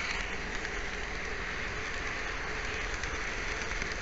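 N-scale model train running on Kato Unitrack, heard close up from a mini camera riding on it: a steady whirring, hissing rumble of motor and wheels on track.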